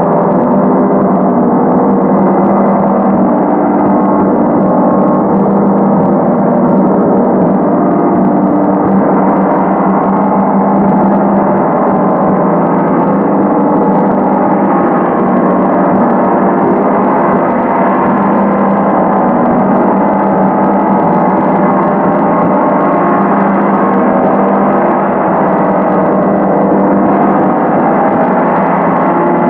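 A 100 cm Feng gong played continuously with two felt mallets. It makes a loud, steady, unbroken wash of many overlapping ringing tones, with no single stroke standing out.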